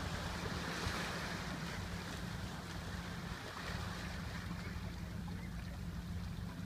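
Low, steady hum of the cruise ship Mein Schiff 3 under way, carried across the water, over a constant wash of wind and water noise.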